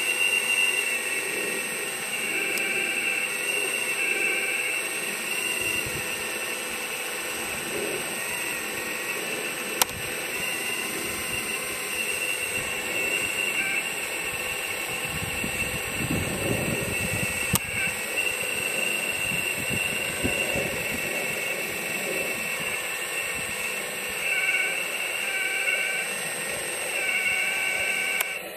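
The hydraulic pump of a 4200XL scale RC excavator whines steadily as the boom, arm and bucket are worked, its high tones shifting in pitch as the load changes. A lower grinding rumble comes for a couple of seconds about halfway through, with a sharp click or two.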